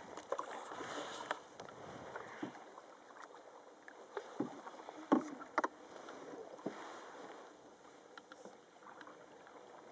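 Canoe paddling on calm water: soft paddle strokes swishing through the water, with a few sharp knocks in the middle.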